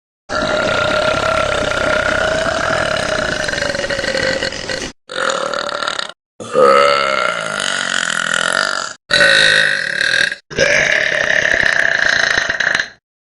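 Five long burps from girls, played back to back, each cut off sharply. The first is drawn out for about four and a half seconds; the others last one to three seconds each, and one of them bends in pitch.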